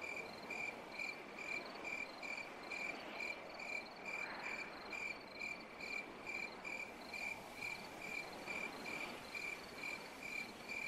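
Cricket chirping steadily at night, a high-pitched chirp repeated evenly about three times a second over a soft background hiss.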